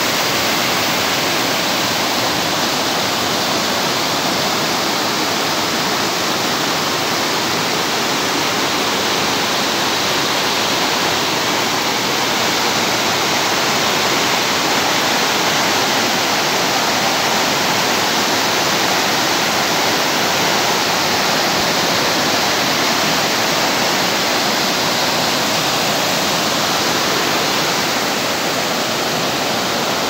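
Waterfall water rushing over rocks: a loud, steady rush with no change.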